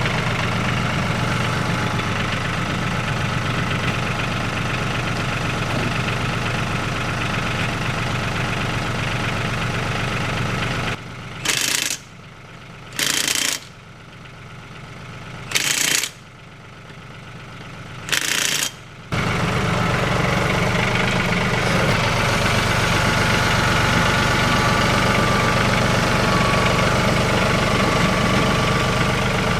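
RK 37 tractor's diesel engine running steadily at idle. Partway through, the engine sound drops away and a cordless Milwaukee 1/2-inch impact wrench gives four short bursts, each under a second, running lug nuts on the front wheel.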